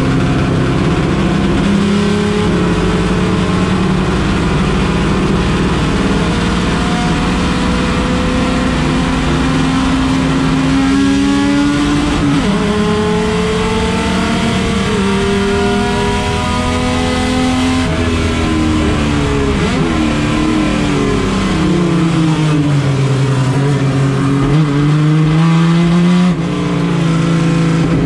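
Chevrolet Opala race car engine running hard and accelerating. Its pitch climbs steadily, drops back about twelve seconds in and again about eighteen seconds in, like gear shifts, then falls away and rises again near the end.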